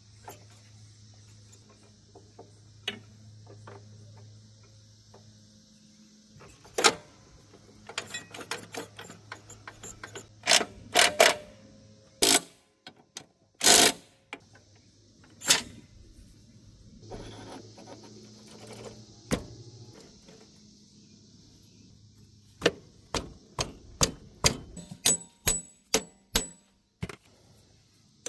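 Hand tools and metal parts on a lawnmower transmission: scattered sharp knocks and clicks, several heavier ones in the middle and a quick run of clicks near the end. A steady low hum comes and goes underneath.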